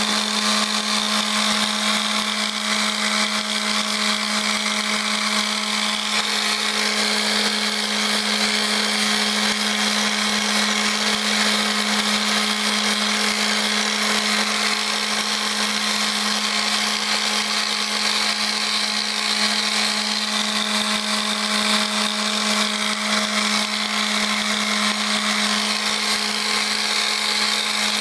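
Electric orbital (mouse) sander running steadily with its pad pressed against a balsa wood body: a constant motor hum under an even sanding noise, without a break.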